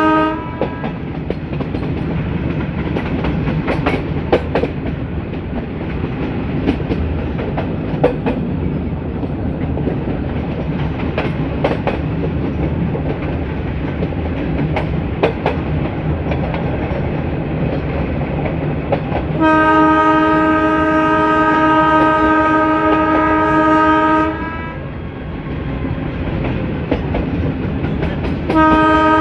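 Metre-gauge train running, with a steady rumble and the clickety-clack of wheels over rail joints, while the YDM4 diesel locomotive's horn sounds in long blasts: one ending just as the sound begins, one of about five seconds past the middle, and another starting near the end.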